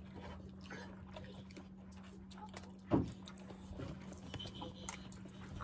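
Quiet sounds of people eating with their hands: faint chewing and small clicks, with one short thump about three seconds in, over a steady low hum.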